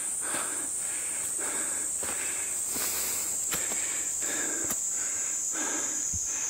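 A hiker walking on a forest trail: footsteps on leaf litter and breathing, about twice a second, over a steady high-pitched insect drone.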